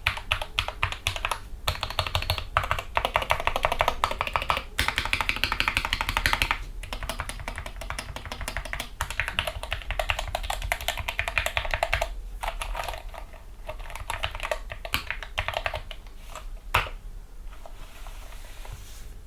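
Typing on a Gamakay MK61 60% keyboard with lubed Gateron Yellow linear optical switches and foam dampening: a rapid, dense run of keystrokes, then one louder stroke near the end before the typing thins out.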